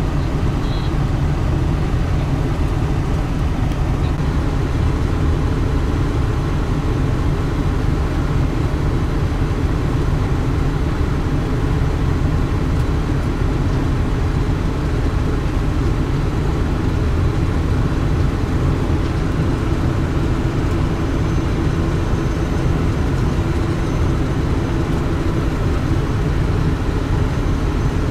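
Heavy diesel engines of a Hitachi hydraulic excavator and dump trucks running steadily. The low rumble holds at an even level, with no distinct bangs or revs standing out.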